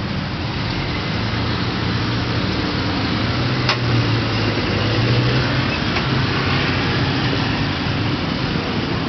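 Busy city road traffic: a steady rumble of car, bus and motorbike engines and tyres. One engine's low hum grows louder between about three and six seconds in. A short sharp click comes near four seconds in.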